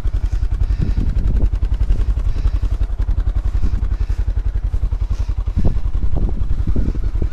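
Off-road vehicle engine idling close by, a steady run of rapid, even pulses with no revving.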